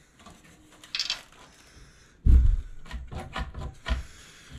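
A heavy bench-top scroll saw with a cast-iron base set down on a workbench with a loud, low thud about two seconds in, followed by a run of lighter knocks and rattles as it is shifted and handled.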